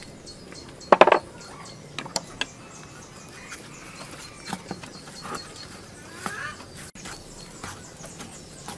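Spoon and wooden spatula working a lump of paste in a frying pan with a little hot oil, giving scattered scrapes, taps and light sizzling, with a sharp knock about a second in. Birds and insects chirp faintly behind.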